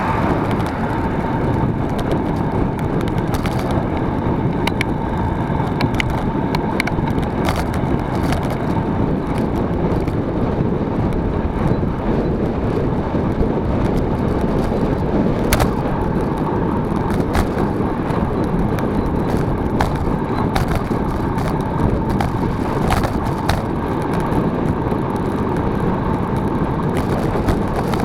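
Steady rumbling noise of a vehicle on the move, with scattered clicks and rattles throughout.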